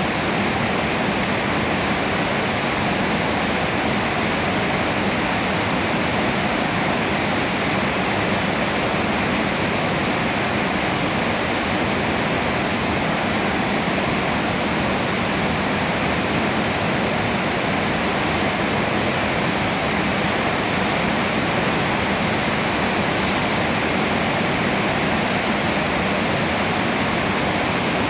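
Steady rain falling on trees and foliage, an even, unbroken rush of rain.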